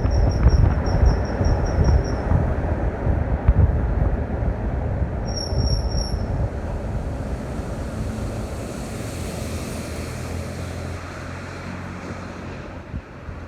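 Ford Flex with a high-pitched squeal that pulses about three to four times a second, heard for the first couple of seconds and again briefly about five seconds in. A low rumble from the vehicle fades steadily as it moves away.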